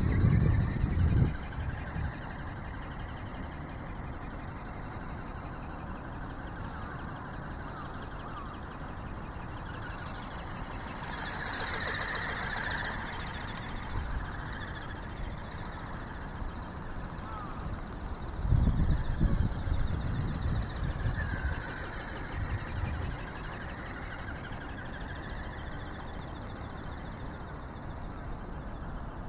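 Electric ornithopter's brushless motor and flapping gearbox running with a steady high whine that swells and fades near the middle as it flies close by. Short low rumbles of wind on the microphone at the start and about two-thirds through.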